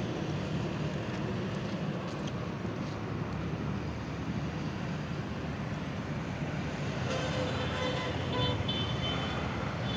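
Steady outdoor background noise of distant road traffic, with faint tones sounding for a couple of seconds about seven seconds in.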